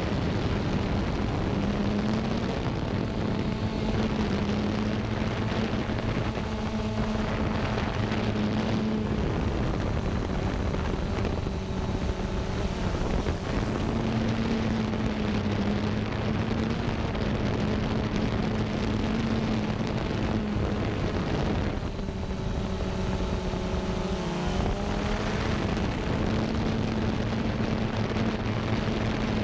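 Xiro Xplorer G quadcopter's electric motors and propellers buzzing steadily in flight, heard from the camera it carries, over a constant rush of air. The pitch wavers now and then as it manoeuvres, most plainly about five seconds before the end.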